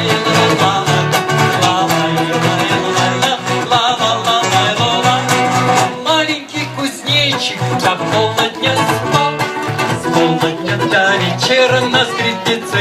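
A sung children's song with a plucked-string accompaniment, a guitar or similar, and voices singing a wordless "la-la-lai" refrain.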